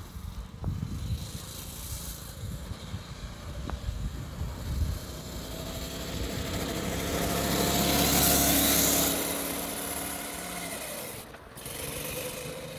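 Small engine of a light vehicle running at steady speed as it comes closer, loudest about eight seconds in, then moving away and fading.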